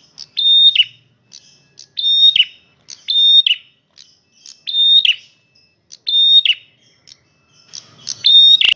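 Male prenjak merah calling loudly and repeatedly: about six short, high calls, each a brief held note that drops sharply at its end, with faint softer notes between. A sharp click near the end.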